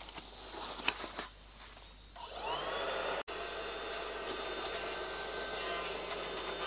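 Soft handling noises, then about two seconds in an electric motor starts up: a whine rising in pitch that levels off into a steady hum, like a vacuum running. The sound drops out for an instant just after three seconds.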